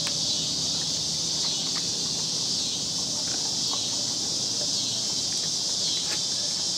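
Steady high-pitched chorus of insects, with a few faint clicks and smacks of a dog biting and tearing at a raw beef oxtail.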